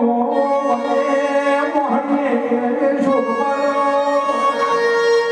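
Devotional folk music led by a bowed string instrument playing a sustained, sliding melody over steady held tones.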